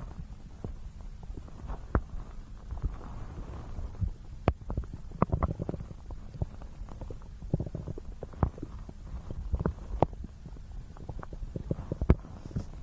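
Stomach gurgling and growling picked up close to the belly: irregular bubbly pops and clicks over a steady low rumble, busiest around the middle.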